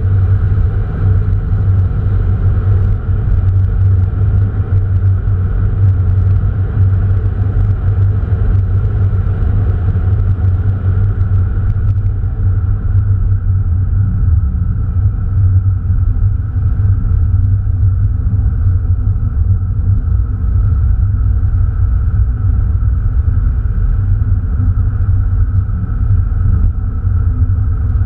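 Opel Astra Bertone Turbo's 2.0-litre turbocharged four-cylinder engine and road noise heard inside the cabin while driving, a steady low rumble. The faint hiss over the top eases off about twelve seconds in.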